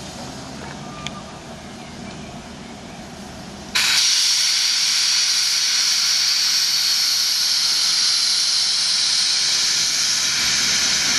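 Steam hissing from a steam locomotive, class 38 (Prussian P 8) 38 3199, starting suddenly about four seconds in and then holding steady and loud. Before that there is only a quieter low rumble.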